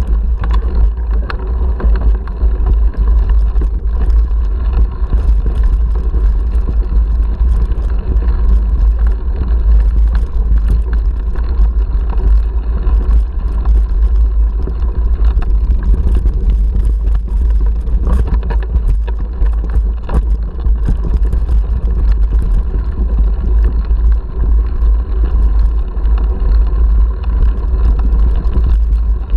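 Wind buffeting an action camera's microphone on a mountain bike riding a rocky dirt trail, a steady low rumble throughout. Tyres crunch over loose gravel and stones, and the bike and camera mount rattle with rapid, irregular clicks and knocks.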